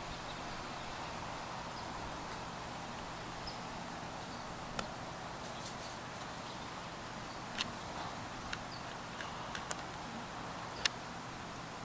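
Steady outdoor background hiss with a few faint high chirps and several sharp clicks in the second half, the loudest near the end.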